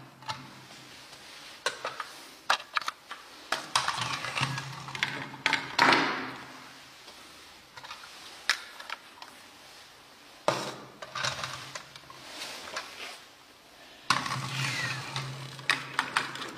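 Plastic toy figures and toy buses handled on a hard tabletop: scattered sharp clicks and knocks, with several stretches of scraping and rustling as pieces are slid and set into place.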